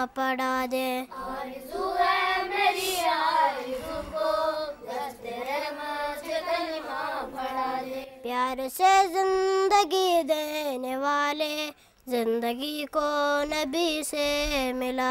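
A boy singing a devotional prayer song, with long held notes that glide between pitches and one short pause a few seconds before the end.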